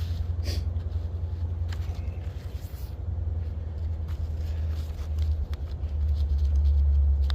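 Low steady rumble that grows louder about six seconds in, with scattered light clicks and rattles of metal kettle-grill parts being handled.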